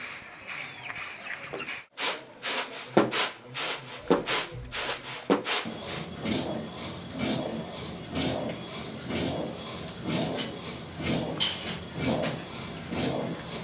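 A run of quick, sharp swishing strokes, then from about six seconds in a stone hand mill (rotary quern) turned by hand: stone grinding on stone, a steady rub that swells and fades about twice a second.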